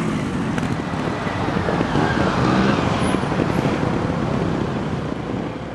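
Trials motorcycle engine running and revving, its note rising and falling, growing quieter near the end.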